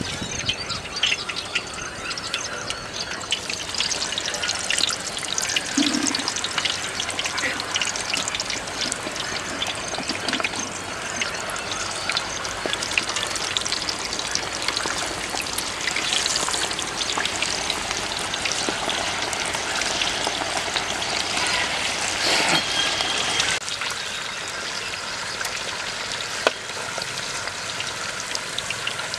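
Whole red bananas, skins on, deep-frying in a black iron kadai of hot oil: a steady sizzle full of dense, fine crackling.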